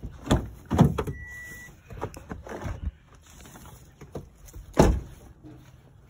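Doors of a Toyota Tundra pickup being handled, a series of knocks and thunks with the loudest slam near the end. A short steady beep sounds about a second in.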